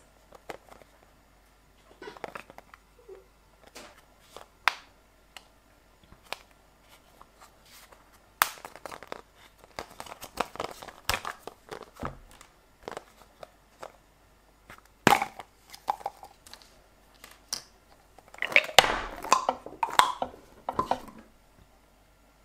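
A clear plastic candy tube handled and opened by hand: scattered sharp plastic clicks and taps, with a denser stretch of crinkling near the end as the tennis-ball bubble gum is taken out.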